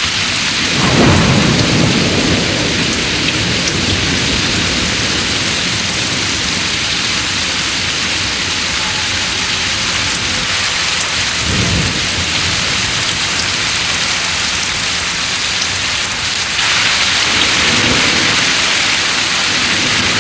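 Thunderstorm sound effect: steady heavy rain that starts abruptly, with low rolls of thunder about a second in and again around eleven seconds. The rain grows louder near the end.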